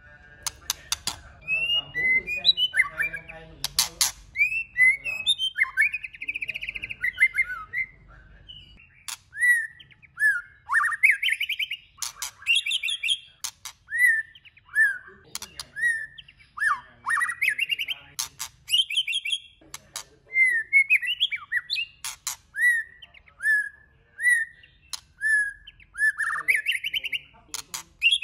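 White-rumped shama singing: a steady run of short, varied whistled phrases, each note sweeping up or down, with brief pauses between them and a few sharp clicking notes in the first seconds.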